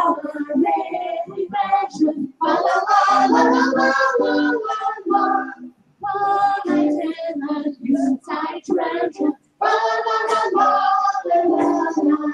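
A woman singing a song with acoustic guitar accompaniment, in phrases broken by short pauses.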